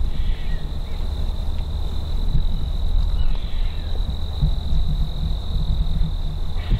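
A steady high-pitched insect trill over a low rumble of wind on the microphone, with a few faint short chirps.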